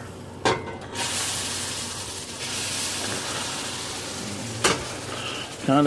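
Hot water poured into a hot skillet of browned butter-and-flour roux, sizzling and hissing loudly as it hits the pan. The sizzle starts suddenly about a second in and slowly dies down, with a couple of sharp knocks of the pot or utensil against the pan.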